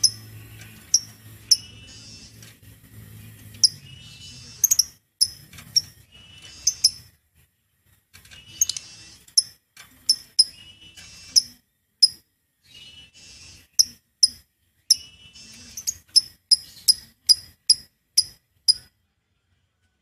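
Caged lovebird calling: sharp, high-pitched chirps, singly and in quick runs of two or three, a little more than one a second, stopping shortly before the end.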